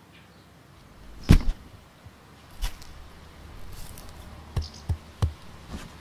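Heavy footsteps of a rubber boot thudding on grass: one loud thud, a second a little over a second later, then three quicker thuds near the end.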